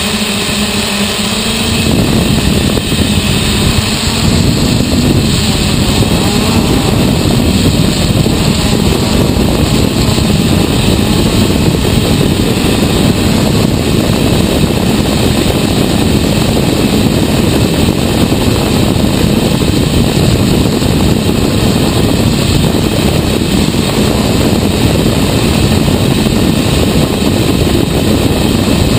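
Hexacopter's six 750Kv Turnigy NTM brushless motors and 10-inch propellers in flight, heard from the camera mounted on the craft: a steady propeller hum that turns into a louder, rougher rush about two seconds in and stays that way.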